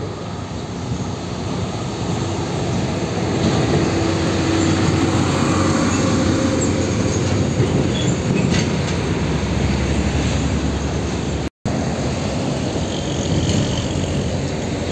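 Heavy diesel trucks hauling shipping containers pass close by: a steady rumble of engines and tyres on the road that swells through the middle. The sound drops out for an instant about two-thirds of the way through.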